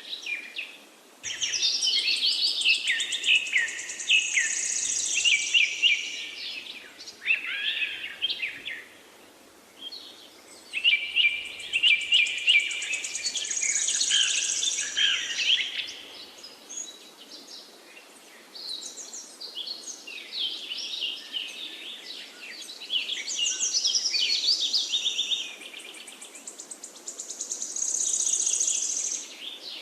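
Songbirds singing long, complex phrases of rapid, high, varied notes, in bursts of a few seconds with short pauses between, over a faint steady hiss.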